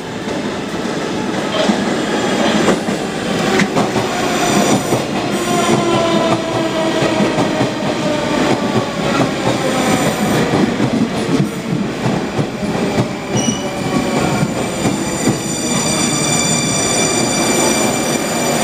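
Moscow Metro train running past close by as it slows to arrive at the station: wheels clicking over the rail joints, with a whine that falls slowly in pitch through the middle. Steady high-pitched squeal toward the end.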